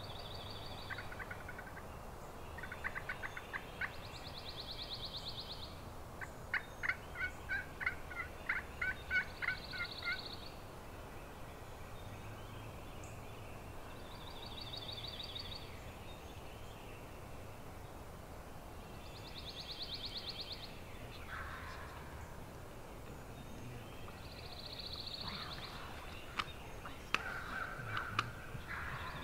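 Turkey yelps played on a pot-and-striker friction call: short runs of evenly spaced clipped notes, the longest run of about eight to ten notes about seven seconds in. Between them a short, high, rattling call comes back every four to five seconds, and a few sharp clicks are heard near the end.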